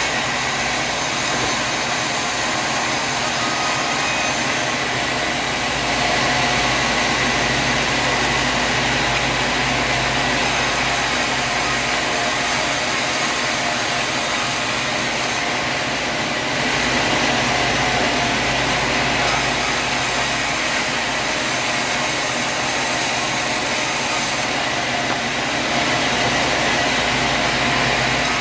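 Sawmill machinery running, a loud steady mechanical din with a few steady tones through it. Its character shifts abruptly every few seconds.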